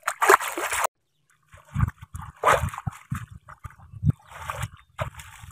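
Shallow, muddy river water splashing and sloshing in short bursts, the strongest right at the start, as bare feet and hands move through it, with low thuds in between.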